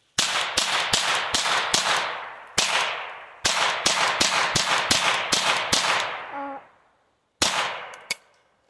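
Ruger Charger .22 LR semi-automatic pistol fired rapidly, about two to three shots a second, some fifteen shots in strings broken by short pauses, with two last shots near the end.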